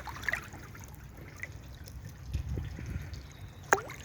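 Shallow brook water trickling and sloshing around boots wading through it, with small drips and one sharp plop near the end.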